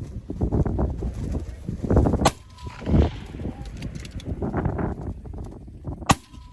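Two rifle shots about four seconds apart from a braked 6mm BR Norma precision rifle, with rustling and knocking of the shooter handling the rifle and gear in between.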